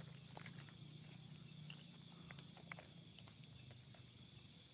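Near silence: faint night forest background with a steady high hiss and a few soft, scattered clicks.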